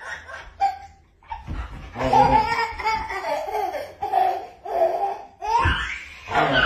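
A toddler laughing in a run of short bursts, giggling in excitement while playing with a dog.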